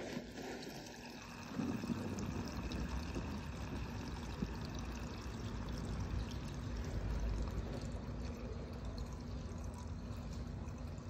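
Gasoline pouring steadily from a plastic gas can's spout into a vehicle's fuel filler neck.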